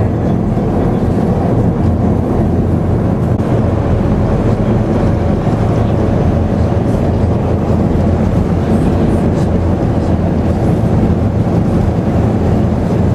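Hoverspeed SR.N4 hovercraft under way, heard from inside the passenger cabin: its gas turbines, propellers and lift air make a loud, steady low drone.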